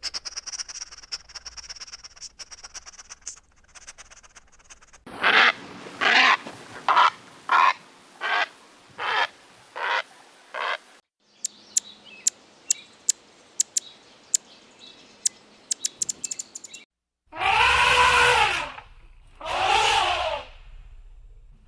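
Farm animals calling in a series of clips: a run of about eight short repeated calls, then quick high chirps, then two long drawn-out calls near the end.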